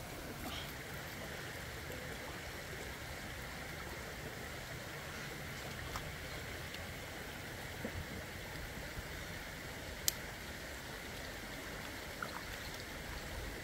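Shallow river flowing over stones: a steady rushing of water, with a single sharp click about ten seconds in.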